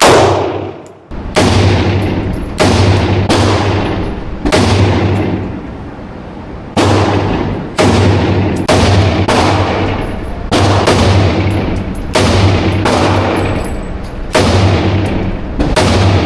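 Rifle shots from a .223/5.56 rifle fired in steady succession, roughly one a second, each loud crack trailing off in a long ringing echo.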